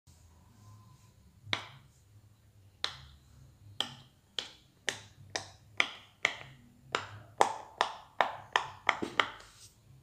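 Silicone pop-it fidget toy having its bubbles pressed one at a time by a finger, giving about fifteen sharp pops. They start slowly and come quicker toward the end, about two or three a second.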